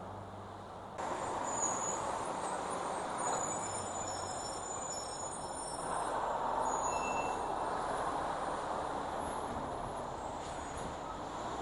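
School buses driving through an intersection on a wet street: steady engine and tyre noise that swells as they pass close, with a few brief high squeaks.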